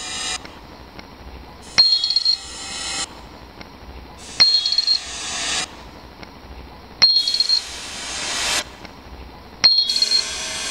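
One-euro coins dropped one at a time into a pewter coin-counting cup, four drops about two and a half seconds apart. Each lands with a sharp clink and a brief high ringing, followed by a hissing sound that swells for about a second and a half and then cuts off suddenly.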